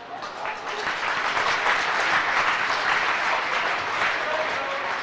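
Arena crowd applauding at the end of a badminton rally. The clapping swells over the first two seconds and eases off near the end.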